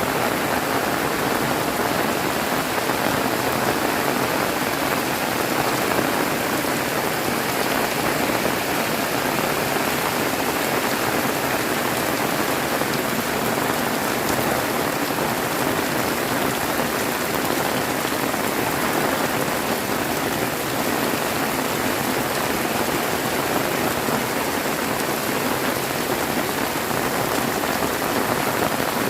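Heavy rain pouring steadily, a dense even hiss of drops with no letup.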